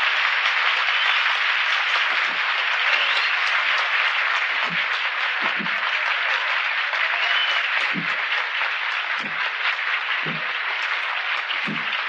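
Audience applauding steadily without a break, with a few low thuds scattered through it.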